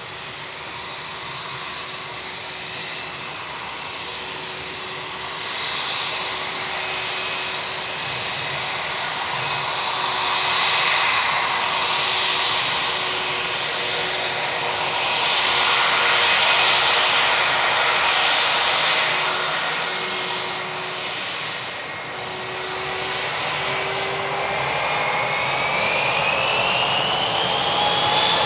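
The twin turbofan engines of a British Airways Airbus A319 running, growing gradually louder, with a steady hum and a whine that rises in pitch near the end.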